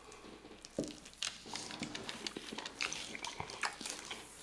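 Close-miked chewing and wet mouth smacks of people eating cubed steak in gravy and mashed potatoes, with scattered light clicks of forks on plates.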